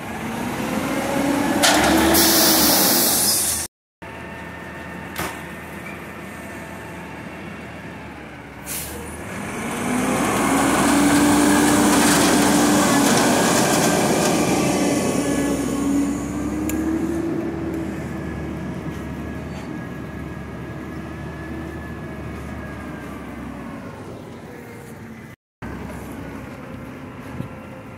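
Peterbilt 320 McNeilus Meridian front-loader garbage truck with a natural-gas engine: a loud hiss of air from the brakes about two seconds in, then the engine revs up for several seconds as the truck pulls away, and its sound fades as it moves off.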